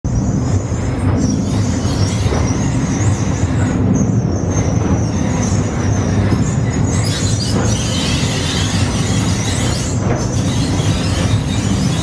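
Old cable elevator running in its open steel shaft: a loud, steady rumble and rattle with a faint, wavering high squeal.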